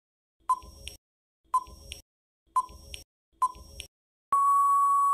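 Quiz countdown-timer sound effect: a short beep about once a second, four times, followed near the end by one long steady beep signalling that time is up.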